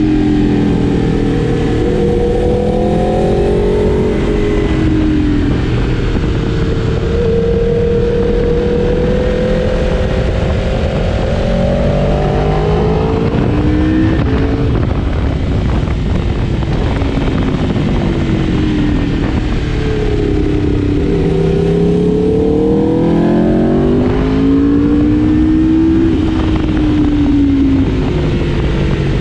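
Sport motorcycle engine under way, its pitch climbing repeatedly as it accelerates and dropping back as it eases off, over a steady low rush.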